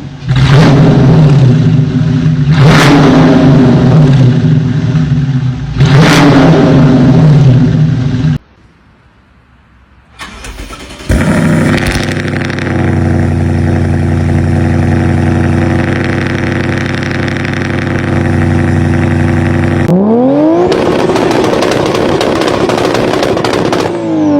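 Car engines revving in a string of separate clips. First an engine is revved hard twice and cuts off about eight seconds in. After a short pause a second engine holds a steady high rev for about ten seconds, and near the end an engine accelerates with a rising pitch.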